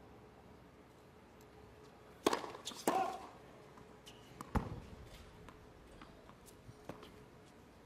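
Quiet tennis-court sound between points, broken by a few sharp cracks a couple of seconds in and a single heavier thud near the middle, with faint small knocks after.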